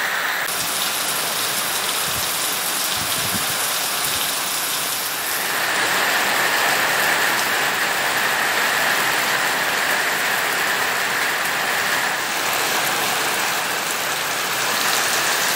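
Heavy rain pouring down in a steady hiss, with water streaming and dripping off the roof edge.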